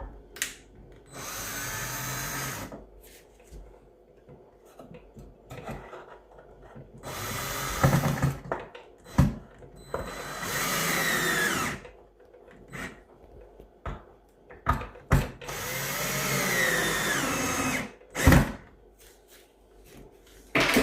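Electric drill run in four bursts of about one and a half to two seconds each, its pitch sliding up and down as the trigger is squeezed and eased, with clicks and knocks of handling between the bursts.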